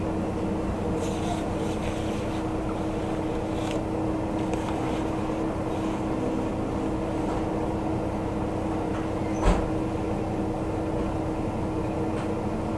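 Running noise of a Kyoto Tango Railway diesel railcar heard from inside: a steady rumble with a constant hum, a few faint clicks, and one short knock about nine and a half seconds in.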